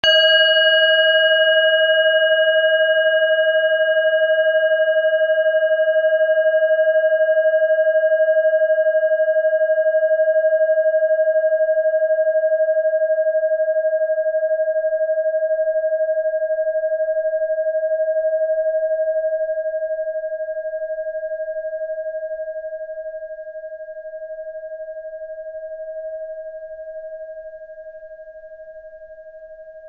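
Tibetan bell struck once at the start, ringing on in one clear tone. Its higher overtones die away over the first dozen seconds, while the main tone fades slowly and is still sounding at the end.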